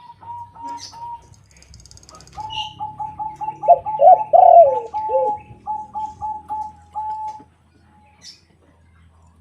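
A zebra dove (perkutut) and a white derkuku dove cooing: a long run of quick, evenly spaced staccato coos, with a few deeper, louder drawn-out coos overlapping it in the middle.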